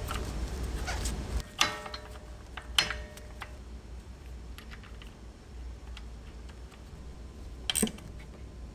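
Scattered sharp metallic clicks and clinks as the 13 mm shaft is slid through the brake caliper hardware, a couple of them with a brief metallic ring, over a faint low hum.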